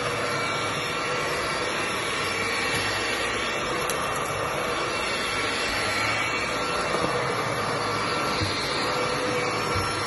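INSE V120 cordless stick vacuum running steadily with a constant whine, its motorised floor head being pushed back and forth over carpet.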